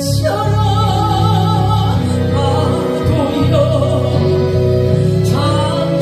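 A woman singing a Korean gospel praise song into a handheld microphone, amplified, over steady instrumental accompaniment.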